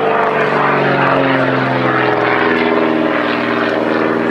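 Propeller engine of a SAAB 91B Safir, a six-cylinder Lycoming, running steadily as the aircraft flies overhead. Its note falls in pitch about a second in and then holds steady.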